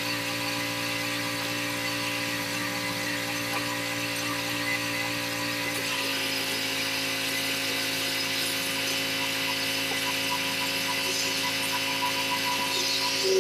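Pressure washer running, its surface cleaner spraying water across concrete pavers: a steady mechanical whine over a hiss of spray. The pitch shifts slightly about six seconds in.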